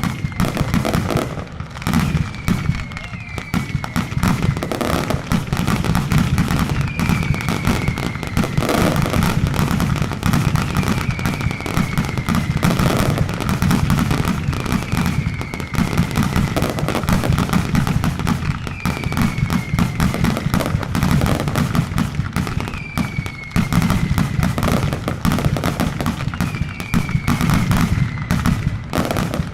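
Mascletà firecrackers going off in a dense, unbroken barrage of rapid bangs. A short falling whistle recurs about every two seconds over them.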